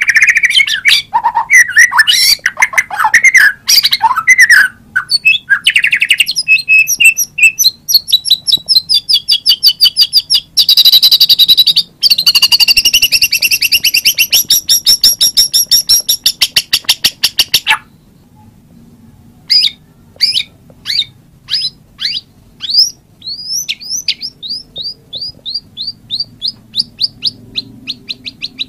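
White-rumped shama (murai batu) singing. It runs through varied gliding whistled phrases, then long fast trills, pauses briefly about 18 seconds in, and ends on a series of sharp repeated notes that come faster and faster.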